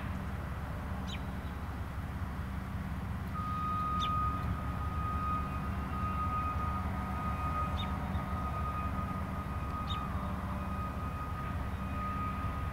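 Freight cars rolling slowly during yard switching, with a steady low rumble. From about three seconds in, a steady high-pitched wheel squeal rises over it and lasts, with small breaks. A bird gives a short falling chirp four times.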